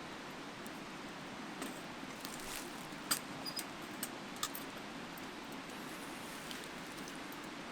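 Steady rushing of a mountain stream, with a handful of light clicks and taps from about one and a half to four and a half seconds in.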